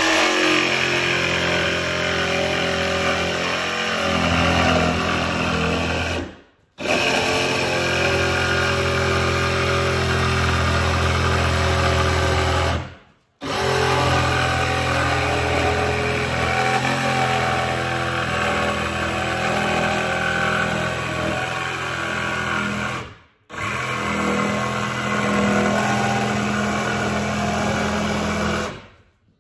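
Cordless jigsaw cutting through a plywood subfloor sheet, its motor and blade running steadily. The cutting stops abruptly three times.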